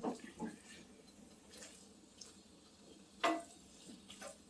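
A few short, light knocks of a cooking utensil against a skillet while stir-frying chicken, the loudest a little past three seconds in.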